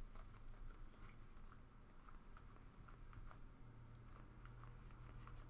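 Faint soft ticks and rustles of trading cards being flipped and slid one behind another in the hands, over a low steady hum.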